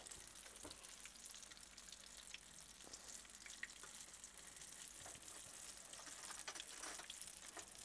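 Apple fritters frying in a pan of hot oil: a faint, steady sizzle with occasional small crackles.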